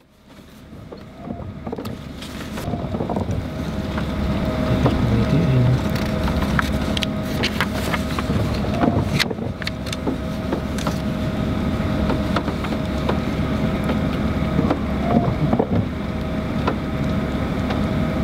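Steady low rumble and hum of a vehicle heard from inside the car, fading in over the first few seconds, with scattered soft clicks and rustles of a paper road atlas being handled.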